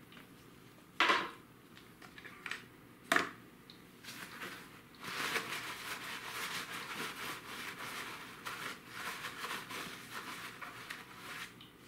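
Two sharp knocks of small parts being handled, then several seconds of uneven rustling and rubbing, as of the oil-filter parts being handled and wiped.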